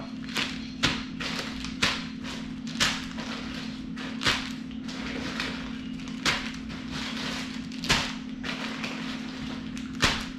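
Plastic bags of soft-plastic fishing baits crinkling as they are pulled from a box, with a sharp slap each time a bag is dropped onto the countertop, about every second or two.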